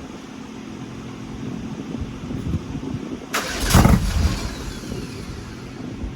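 Porsche 964's air-cooled flat-six being cranked by its starter without starting, with one loud burst about halfway through. The engine still won't fire after its cam timing was reset.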